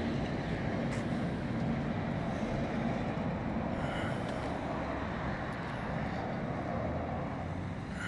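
Steady outdoor street background noise: a low, even rumble of traffic with no distinct events.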